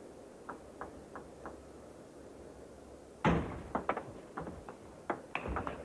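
Table tennis rally: the ball clicking off bats and table, faint at first, then a loud thud about three seconds in followed by a quick run of sharper hits.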